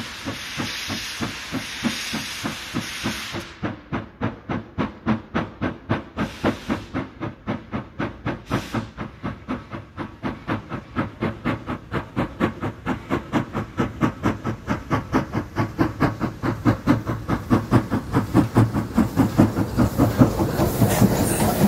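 Soviet P36 steam locomotive approaching at speed with a passenger train. A steady hiss for the first few seconds gives way to a fast, even beat of exhaust chuffs that grows louder as the engine draws near. Wheel and rail noise rises near the end.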